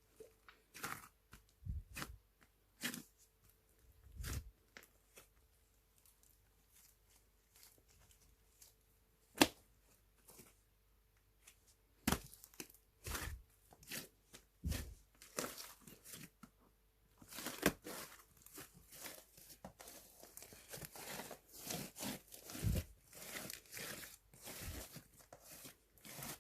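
Slime being pressed, stretched and pulled apart by hand, making irregular sticky crackles, pops and tearing sounds. There is one sharp pop about nine seconds in, and the crackling grows denser in the second half.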